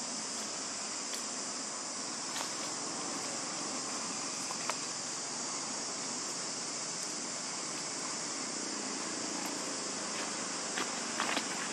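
Insects droning steadily in a high, even chorus, with a few faint clicks about five seconds in and again near the end.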